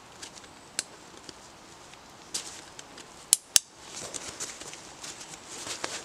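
Buckles on a handlebar tent bag clicking shut twice in quick succession a little past three seconds in, after a few light clicks, followed by rustling of the fabric and straps with small clicks as the bag is cinched down.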